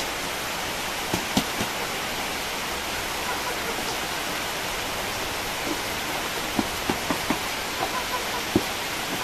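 Steady hiss of steam from a boiling seeng, the pot under a woven bamboo rice steamer, with a few light knocks and taps as the half-steamed rice is tipped from the steamer into a basin.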